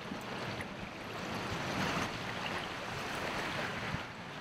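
Steady rushing of river water around the kayak, with wind on the microphone.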